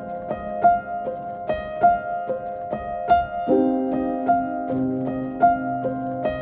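Background music: a piano-like keyboard picking out a repeating pattern of notes, with sustained lower notes and a bass line joining about halfway through.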